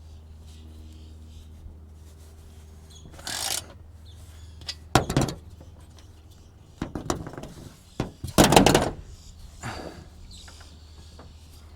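A series of knocks and thuds with short scraping rushes, the loudest about five seconds in and again a little past the middle, over a steady low hum.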